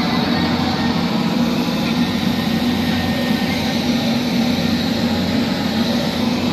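Heavy construction machinery engine running steadily with a constant low drone.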